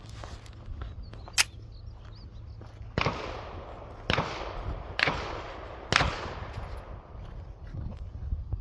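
Four gunshots from a Ruger pistol, about a second apart, each with a long echoing tail. A single short, sharp click comes first, about a second and a half in.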